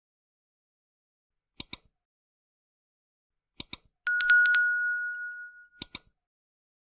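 Subscribe-button animation sound effect: mouse clicks in quick pairs, three times, and a bright bell ding for the notification bell about four seconds in that rings out over about a second and a half.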